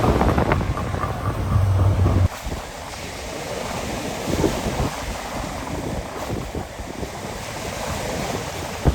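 Wind buffeting the microphone over breaking surf. A heavy low rumble cuts off suddenly a couple of seconds in, leaving softer wind and wave noise.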